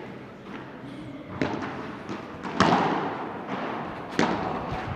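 Padel rally: the ball struck by rackets and bouncing, three sharp pops about one to one and a half seconds apart, the loudest a little past halfway, with a few fainter knocks between.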